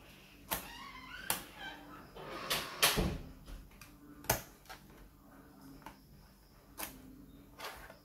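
Plastic access cover on the underside of an HP G42 laptop being pressed into place by hand, its clips snapping in with a series of sharp clicks, about seven over the stretch, the loudest in the middle.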